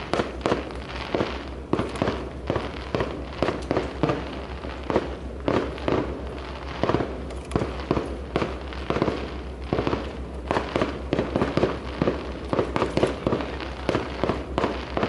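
Aerial fireworks going off in quick, irregular succession: many sharp bangs, several a second, with crackle between them.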